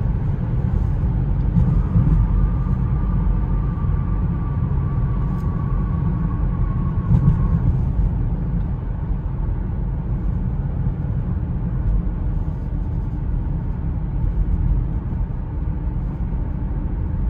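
Cabin noise of a 2002 Lexus IS300 cruising: its 3.0-litre inline-six and the road make a steady low rumble. From about two seconds in, a faint high whine drifts slightly lower in pitch and fades out by about eight seconds.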